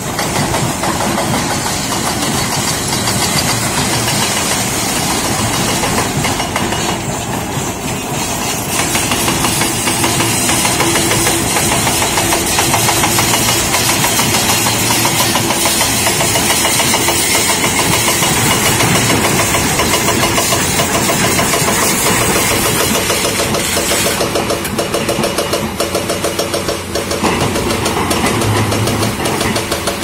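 Diesel engines of Doosan crawler excavators running, with a hydraulic breaker on one machine hammering into rock in a fast, steady pounding.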